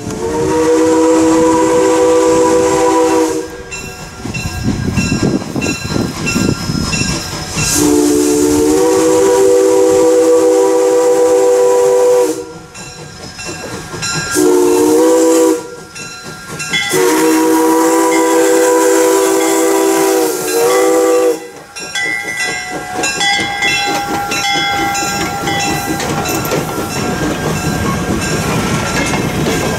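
A steam locomotive's multi-note chord whistle sounds the grade-crossing signal: long, long, short, long. In the last third the train rumbles past over the crossing.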